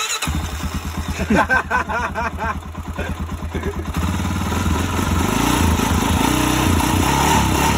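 Honda TRX400 ATV's single-cylinder four-stroke engine running on its first start after a top-end rebuild with new piston, rings and cylinder, the cure for its low compression. It comes in right at the start and settles into a louder, steadier run about four seconds in.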